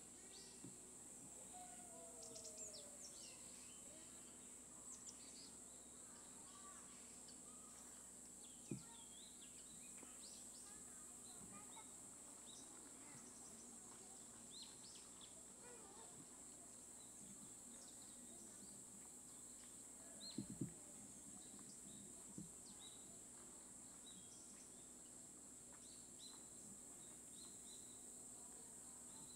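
Faint woodland ambience: scattered small bird chirps over a steady high-pitched hiss, with two brief soft knocks about 9 and 20 seconds in.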